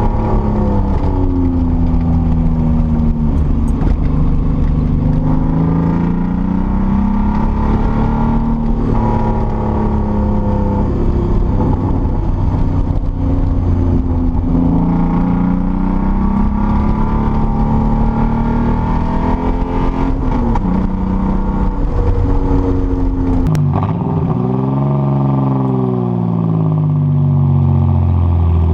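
Datsun 240Z engine running under load. Its pitch climbs and then drops several times, like a car pulling through the gears. About 23 seconds in there is a sharp click and the deep rumble thins out, and then the revs rise and fall again.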